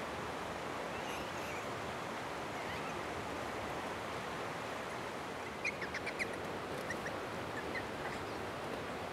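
Steady rush of flowing water, with a quick run of about five short, high-pitched squeaky animal calls a little past halfway and a few fainter ones just after.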